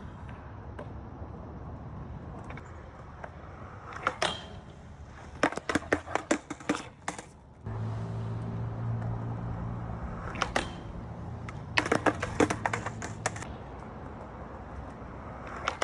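Skateboard rolling on concrete, broken by bursts of sharp clacks and clatters as the board hits the metal rail and the pavement on bailed boardslide attempts, with the loudest clusters in the middle and again near the end.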